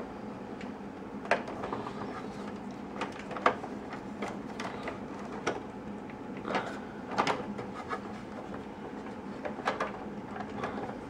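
Plastic body and chassis of a toy remote-control pickup truck being handled and fitted back together: irregular sharp clicks and knocks, over a steady low hum.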